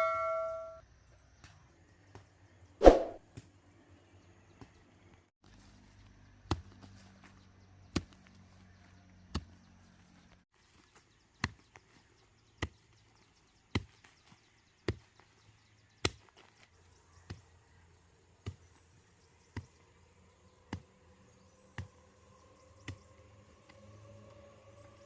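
Bamboo being chopped with a blade: sharp knocks at an even pace of about one a second, after a single louder strike about three seconds in.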